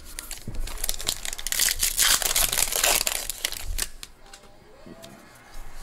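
Foil wrapper of a 2021 Bowman baseball card pack being torn open and crinkled, a dense crackling that lasts about four seconds and then dies down.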